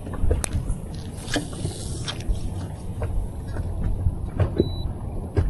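Steady low rumble on a fishing boat, with scattered light clicks and knocks and one short high beep about four and a half seconds in.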